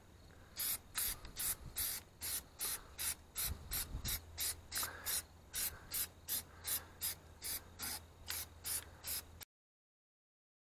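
Aerosol can of Plasti Dip rubber coating sprayed in short, quick bursts, about three a second, laying a light dusting of green onto a wheel. The hissing stops abruptly near the end.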